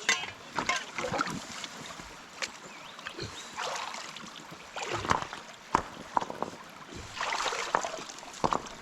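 Splashing and sloshing in a shallow river pool, with irregular knocks of rocks and gravel as big stones are lifted out and a shovelful of gravel is dug for gem testing.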